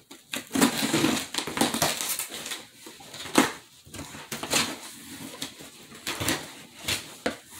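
Cardboard box being opened with scissors and its packing handled: irregular rustling, scraping and crinkling, with sharp clicks and scrapes every second or so.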